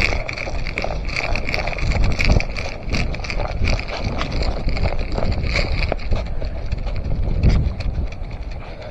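Wind and handling noise on an action camera's microphone, with low rumbling surges about two seconds in and again near the end, and scattered short clicks and knocks throughout.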